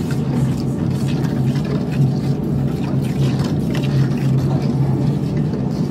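A steady low machine hum, with a metal spoon scraping and stirring a thick spice paste in a steel pot a few times.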